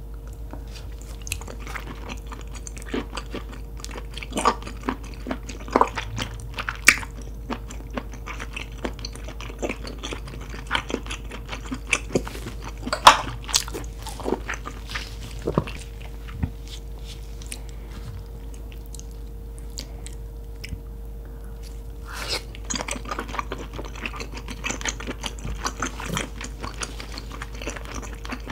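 Close-miked eating sounds of a person biting and chewing seafood: wet clicks and crunches in clusters, sparse for a few seconds past the middle, then dense chewing again near the end. A faint steady hum sits underneath.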